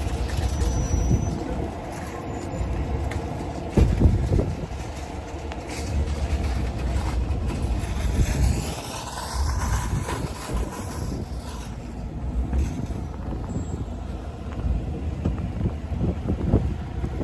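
A motor vehicle on the road: a steady low rumble with a few louder thumps, and a faint falling tone between about 8 and 11 seconds in.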